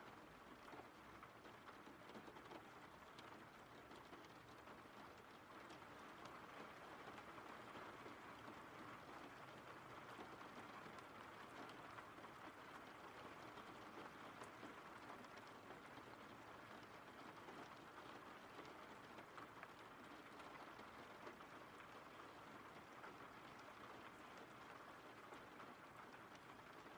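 Faint, steady rainfall: an even hiss of rain with scattered light drop ticks.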